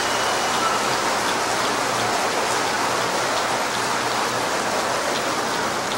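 Large audience applauding and cheering: a long, loud ovation that begins to ease off near the end.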